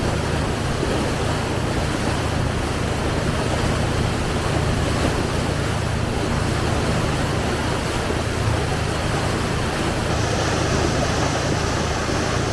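Excursion boat's engine running steadily with a low hum, under a constant rush of water and wind.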